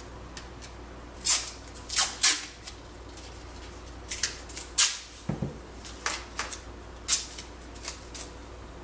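Painter's tape being pulled off the roll and torn into strips: a series of short, sharp rips in irregular clusters, with a soft low thump about halfway through.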